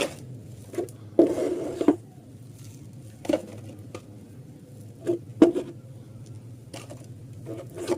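Muddy plastic toys knocking and clattering as they are picked up and dropped into a basket, in scattered knocks a second or two apart with a brief flurry about a second in. A low hum runs underneath.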